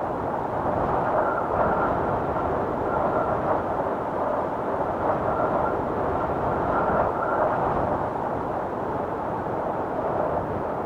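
Strong mountain wind rushing past the microphone: a steady noise that swells and eases without stopping.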